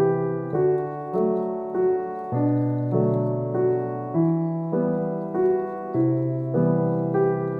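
Background music: a gentle piano tune playing steady notes, a new chord or note about every half second.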